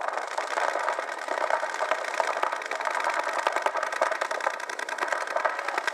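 Many paintball markers firing fast at once at the breakout of a point: a dense, continuous rattle of shots.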